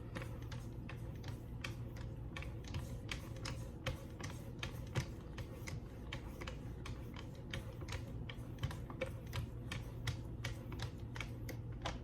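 Strop paddles on a Wicked Edge guided sharpener stroking along the D2 steel blade of an Ontario RAT II: a light click at each stroke, about three a second, in a steady rhythm over a faint low hum.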